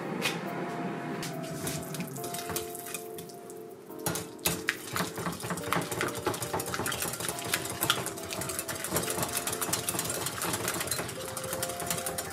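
A whisk beating softened cream cheese in a glass bowl: rapid clicking and scraping against the glass that starts about four seconds in, over soft background music.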